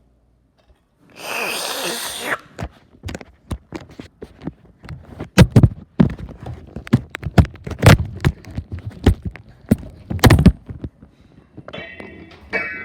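A short hissing burst about a second in, then a long run of irregular taps and thumps, several of them loud. Piano music begins near the end.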